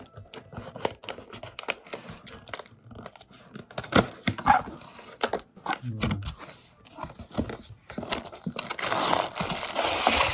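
Product box being opened and its packaging handled: irregular clicks and knocks of cardboard, then plastic wrapping crinkling louder and denser from about eight seconds in.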